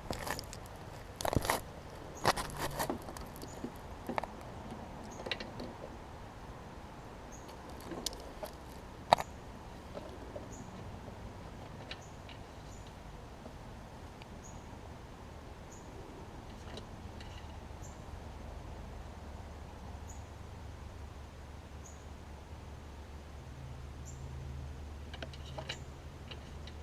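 Scattered clicks and knocks of hand work on a push mower's plastic oil dipstick cap, bunched in the first ten seconds. After that only faint outdoor background remains, with a low steady hum.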